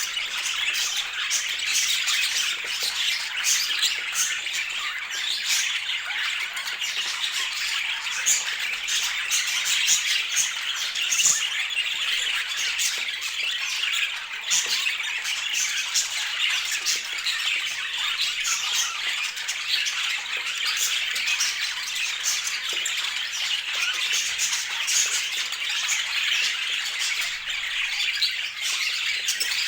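Budgerigars chattering and squawking continuously, a dense stream of overlapping short chirps and warbles from several birds at once.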